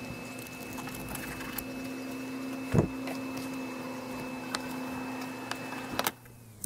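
A steady machine hum with light clicks and knocks of a fillet knife and fish on a fish-cleaning table as a bonito is filleted. One louder knock comes a little under three seconds in, and the hum cuts off suddenly near the end.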